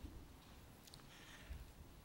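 Near silence: room tone with a few faint low thumps and soft rustling.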